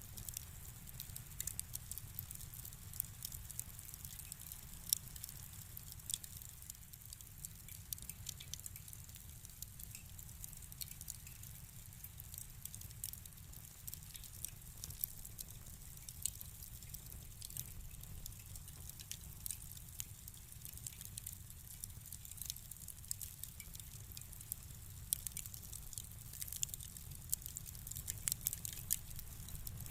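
Wood fire crackling in a fireplace: frequent irregular pops and snaps over a low steady rumble of the flames.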